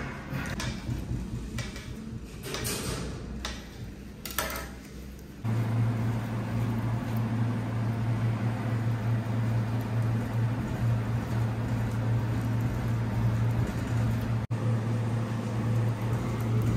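A few knocks and clatters, then about five seconds in an electric kitchen appliance's motor switches on and runs steadily with a low hum.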